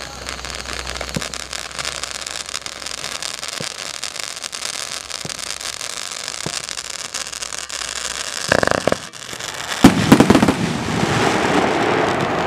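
Primed Pyrotechnics Molotov Cocktail mine firework: a fountain of sparks hissing and crackling steadily, then about ten seconds in a few loud bangs as the mine fires, followed by a dense shower of crackling.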